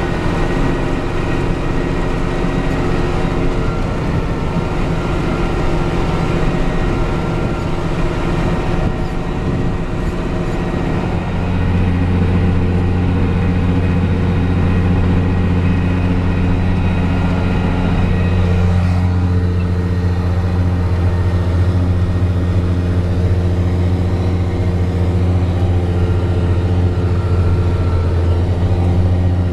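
New Holland Genesis 8770 tractor's remanufactured six-cylinder diesel engine running steadily under heavy load while pulling a plough through heavy clay, heard from inside the cab. About ten seconds in, its low drone grows louder and stays there.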